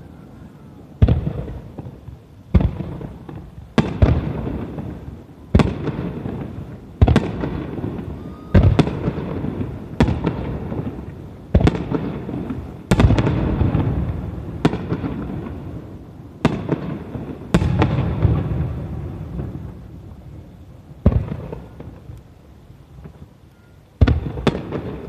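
Aerial firework shells bursting in a rapid series, a sharp bang about every second and a half, each trailing off in a long rumbling echo. The bangs thin out toward the end, with a last pair close together.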